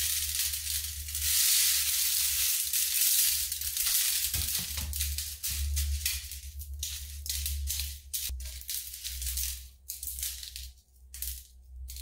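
Dried corn kernels rattling off a flexible mesh dehydrator screen into a metal baking pan as the screen is bent and rubbed. A dense, continuous rattle for about the first six seconds gives way to a string of shorter, separate rattles.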